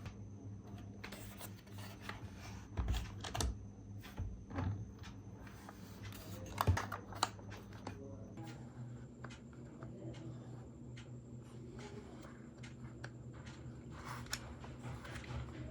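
Irregular light clicks, taps and rubbing of small objects being handled, with a few louder knocks, over a steady low hum.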